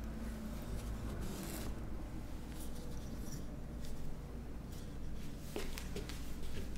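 Faint rustling and scattered light clicks of small objects being handled, over a steady low hum; the sharpest clicks come in a cluster about two-thirds of the way through.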